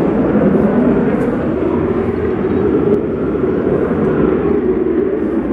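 Fighter jets taking off in the distance: a steady, deep rush of jet engine noise.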